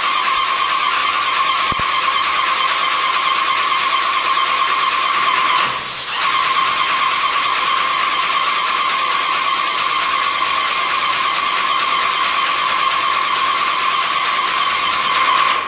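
Paint spray gun hissing steadily as it sprays primer, with a constant whine under the hiss. The spray breaks off briefly about five seconds in, then carries on, and the sound fades out near the end.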